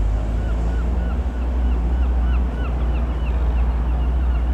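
Single-engine Reims Cessna F172N Skyhawk's piston engine and propeller droning steadily overhead. A bird chirps repeatedly over it, about three or four short rising-and-falling calls a second.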